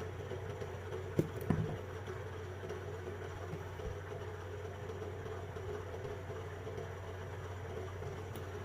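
Steady low background hum, with two light clicks about a second in from small parts being handled.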